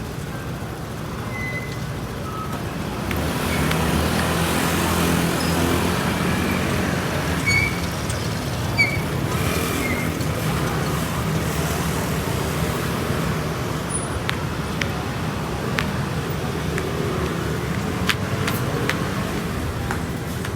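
Street traffic: road noise with a vehicle engine growing louder about three seconds in and passing, plus a few short high chirps and scattered ticks.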